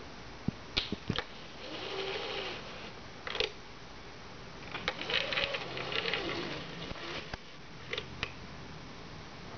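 A bird striking and pecking at window glass: a string of sharp, irregular taps, some in quick pairs, with two softer, longer fluttering sounds between them.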